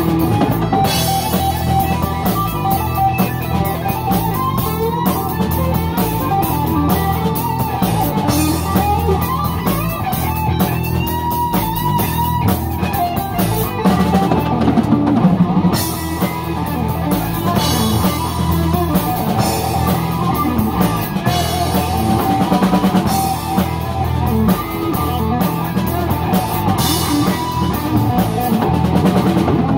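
Live rock band playing: electric guitar over bass guitar and a drum kit, loud and continuous.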